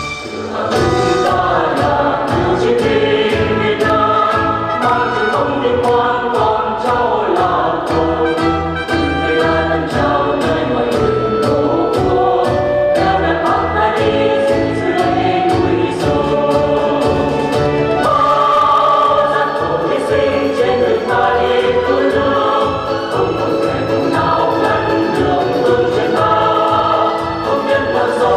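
Music for a couple dance: a song with a group of singing voices over a steady beat.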